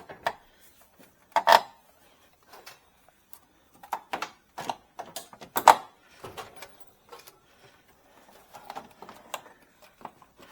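Plastic front cover panel on a pickup's front end being worked into place, its tabs and edges giving irregular clicks and knocks, the loudest about one and a half seconds in and again near six seconds.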